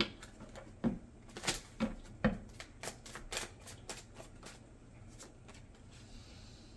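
Tarot cards shuffled and handled by hand: a run of sharp card snaps and taps for about the first four seconds, then quieter.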